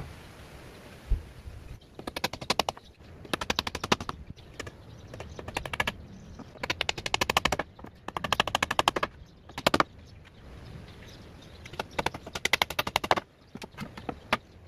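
Claw hammer driving nails into plywood panels of a drawer box, in several quick runs of rapid taps with short pauses between them.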